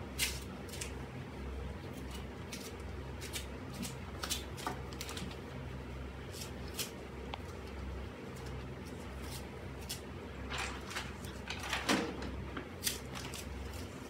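Dusting cloth wiping a wooden TV stand and stereo equipment: scattered light rubs, taps and small knocks as things are handled, busiest a little before the end, over a steady low hum.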